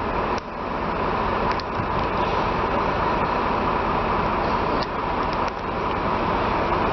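Steady running noise of a moving Scania K360ib coach, engine and road noise with a steady whine, broken by a few abrupt cuts.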